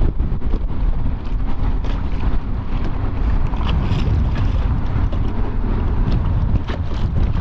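Strong wind buffeting the microphone on an open boat: a loud, steady low rumble, with scattered short knocks over it.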